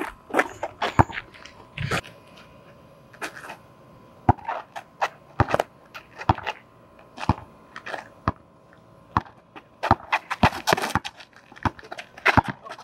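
A basketball being dribbled on an asphalt court: sharp bounces roughly once a second, quickening into a quick run of bounces about ten seconds in.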